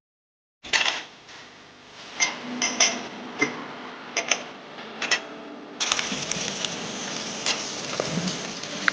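Dishes and cutlery clinking and knocking together as they are handled, in scattered sharp clinks. About six seconds in, a steady hiss sets in under the clinks.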